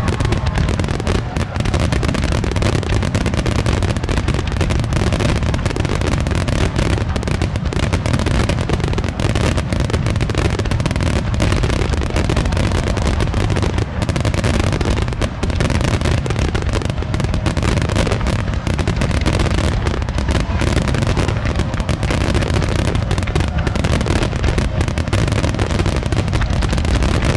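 Japanese star mine fireworks barrage: shells bursting in rapid, continuous volleys with deep booms and crackling, with no let-up.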